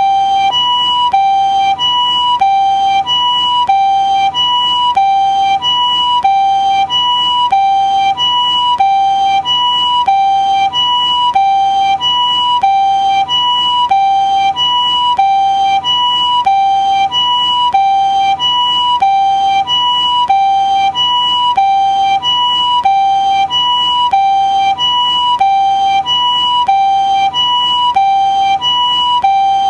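Japanese ambulance siren sounding its two-tone "pee-po" call: a higher and a lower steady tone alternating evenly, about one high-low pair every second and a bit, with no change in pitch or speed.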